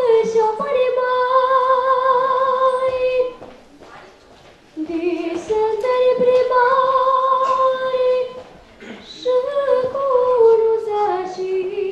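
A teenage girl singing a Romanian folk song unaccompanied: three long phrases of held notes with a wide vibrato, separated by short pauses, the last phrase stepping down in pitch.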